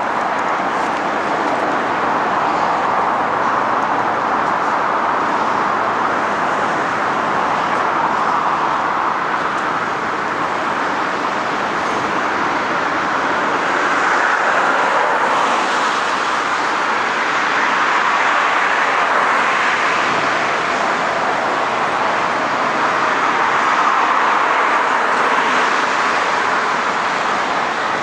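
Road traffic noise: a steady hiss of tyres and engines from passing vehicles, swelling briefly about halfway through and again near the end.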